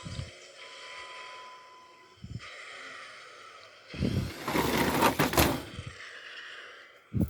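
Lego Technic 42140 remote-controlled vehicle running, its small electric motors whirring. A loud rattling clatter lasts about two seconds in the middle, and a few short dull thumps fall before and after it.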